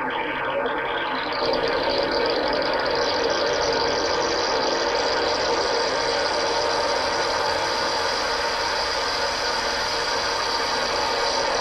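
Homemade synthetic sound effect: a dense, steady bubbling and churning texture that sounds like being underwater. It brightens and gets a little louder about a second and a half in, then grows brighter still over the next few seconds.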